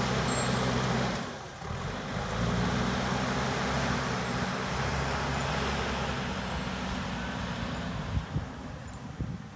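JCB backhoe loader's diesel engine running under work, dropping briefly just over a second in and then picking up again. It eases off near the end, with a few knocks.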